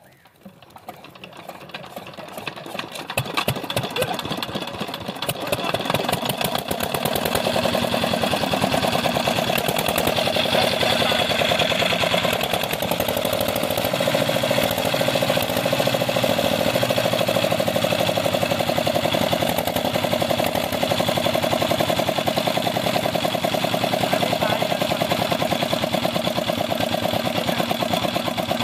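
Old Petter-type single-cylinder diesel engine on a tubewell cold-starting with a flame held at its air intake. It catches and picks up speed over the first few seconds, then runs steadily with a rapid, even chugging.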